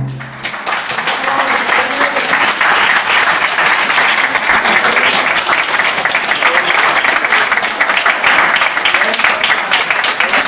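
The last held chord of a youth orchestra's brass and strings cuts off right at the start, then an audience applauds, many hands clapping steadily.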